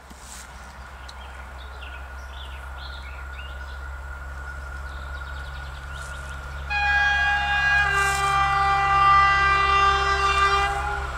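PKP class SU45 diesel locomotive approaching, its Fiat diesel engine droning and growing steadily louder. About seven seconds in it sounds a long horn blast that lasts about four seconds, with a lower second tone joining about a second after it starts.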